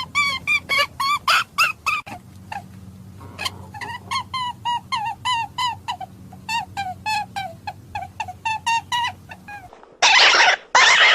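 Hare calling: quick runs of short, high squeaks, three or four a second, pausing briefly near the start. Near the end come two loud, harsh screams.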